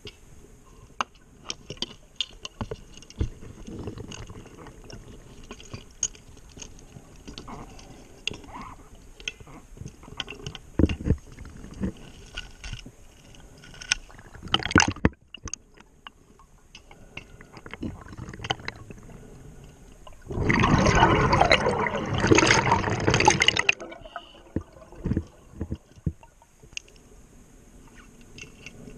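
Underwater sound of a scuba diver breathing through a regulator. Exhaled bubbles make one loud bubbling rush lasting about three seconds in the second half, with a shorter burst near the middle, over scattered clicks and knocks.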